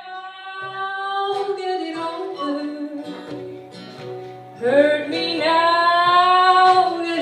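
A woman singing long held notes over acoustic guitar, live; a louder sung phrase begins about halfway through.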